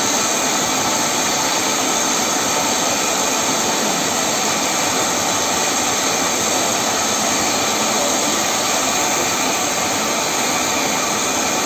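Servo-controlled double-sided foam cutting machine running as its blade cuts through a block of polyurethane foam: a loud, steady, unchanging mechanical noise.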